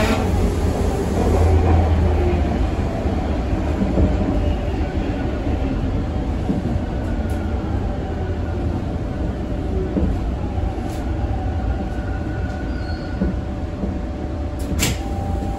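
Toronto subway train heard from inside the car: a steady low rumble of wheels on rails with a faint whine, easing off as the train slows into a station. A single sharp click sounds near the end.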